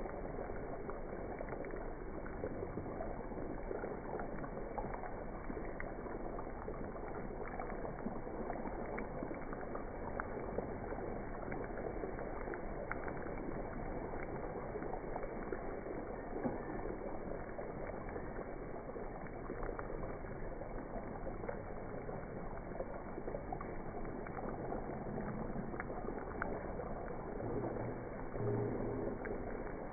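Butter and oil sizzling and bubbling steadily in a small heavy frypan around a whole cauliflower, with scattered little crackles and clicks as a spoon bastes it with the hot fat.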